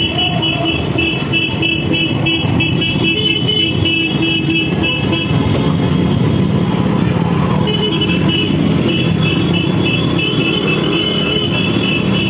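Motorcycle horn held down in long steady blasts, one for about the first five seconds and another from about eight seconds in, over the running engines of a line of motorcycles riding slowly.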